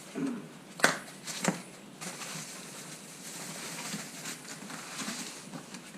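Two sharp knocks about a second in, roughly half a second apart, from handling the e-bike during assembly, then a faint steady hiss.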